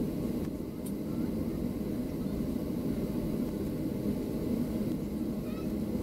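Inside the cabin of a Boeing 737-700 taxiing on the ground: its CFM56-7B turbofan engines running at low taxi thrust, a steady low drone heard through the fuselage.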